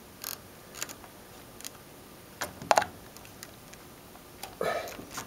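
Scattered light clicks and taps of multimeter test probes being worked into the slots of a wall outlet, with a sharper knock about halfway through and a short bump near the end.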